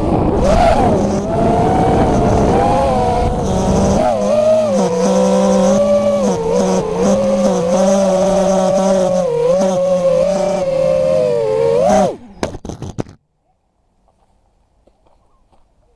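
FPV quadcopter's brushless motors whining in flight, the pitch wavering up and down with throttle, with wind rush over the first few seconds. About twelve seconds in the motors spin down abruptly and stop a second later.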